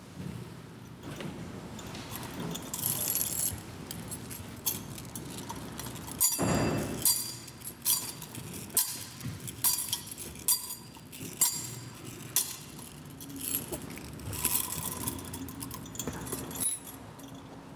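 Metal chains of a thurible clinking and jangling as the Gospel book is incensed, in a run of swings a little under a second apart. There is a brief louder noise about six seconds in.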